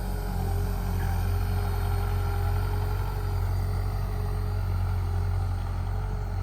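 Diesel engine of heavy earthmoving machinery running steadily, a low hum with a steady whine above it.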